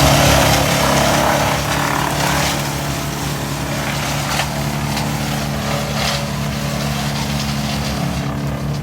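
Stihl chainsaw engine running steadily at high revs, with a constant even pitch.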